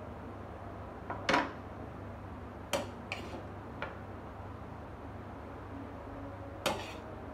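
Metal cutlery, a spoon and a knife, clinking against a ceramic plate and a wooden chopping board in a few separate clinks, the loudest a little over a second in.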